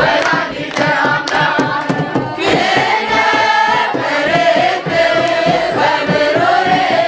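A group of worshippers singing an Orthodox hymn together in a chant-like style, with a few sharp beats in the first couple of seconds.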